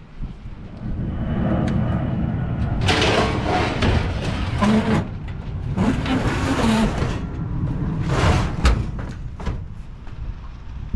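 Pickup truck engine running as the truck backs up: a steady low rumble, with several loud, noisy stretches of a second or two each.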